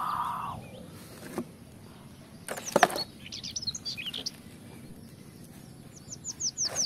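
Small birds chirping, with runs of quick downward-sweeping chirps in the middle and again near the end. About two and a half seconds in comes a short clatter of hard plastic toys knocking together as they are handled, the loudest sound.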